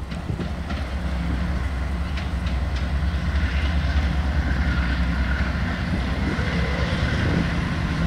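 Approaching diesel locomotives, a GE C44-9W leading an EMD SD60E: a steady low engine rumble that grows slowly louder as they come closer, with a few light clicks from the wheels on the rails.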